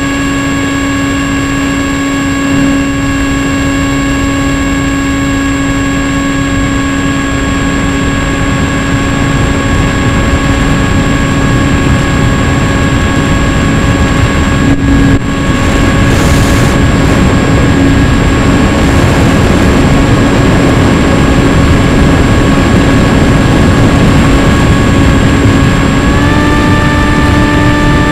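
Radio-controlled FPV airplane's motor and propeller running at steady throttle, a constant hum over heavy wind rush. The pitch steps up a little near the end as throttle is added.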